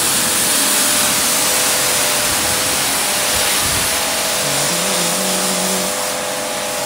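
Pressure washer jet spraying onto a wet tarmac driveway: a steady, loud hiss with a steady hum underneath.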